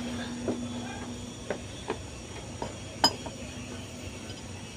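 Metal hand tools clinking and tapping against the engine's belt pulley and brackets during a drive-belt change: a handful of short, sharp clicks spread over a few seconds, the loudest about three seconds in, over a faint steady hum.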